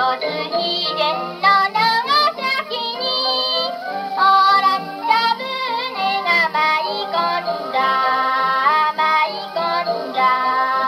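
A 78 rpm shellac record of a Japanese children's song played acoustically on an HMV Model 102 wind-up portable gramophone: a female voice sings the melody over instrumental accompaniment. The sound is thin and narrow, with no deep bass and little top.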